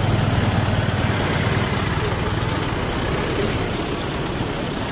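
Road traffic: engines of cars and motorbikes running close by in slow, congested traffic, with a low engine hum loudest for the first second or two.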